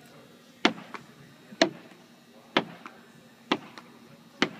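Tennis balls smacking against a padded wall and being caught in a catching drill, about one a second: five sharp smacks, each followed a moment later by a softer tap.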